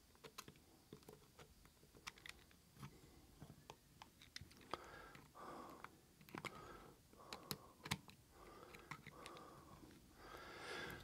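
Faint, scattered small clicks and ticks of a small screwdriver tip working the threaded metal ring nut on a handheld radio's antenna connector as it is spun loose.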